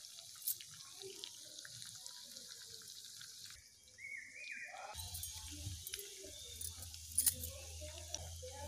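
Hot oil sizzling and crackling as fish fries in a small clay pot, with sharp pops now and then. The sizzle drops away briefly about halfway, then returns over a low hum, with the loudest pops near the end.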